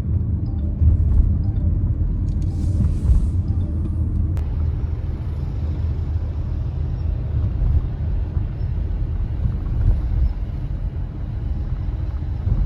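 An engine running steadily with a continuous low rumble, as when underway.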